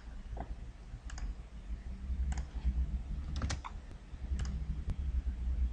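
Scattered clicks of a computer keyboard and mouse, roughly one or two a second, over a low steady hum.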